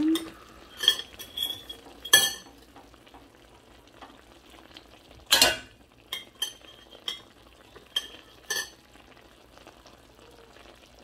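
Metal clinking and knocking against a stainless steel pan, about a dozen short strikes, several with a brief high ring, the loudest a longer scrape about halfway through. A low sizzle of the pork adobo cooking in the pan sits underneath.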